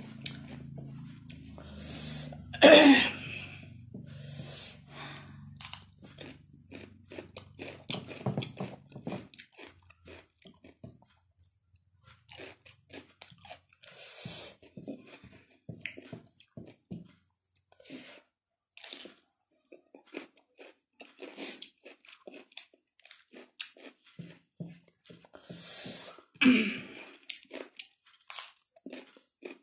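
Chewing and crunching of raw cucumber slices: a run of small wet crackles, with louder crunchy bites about three seconds in, around the middle, and near the end.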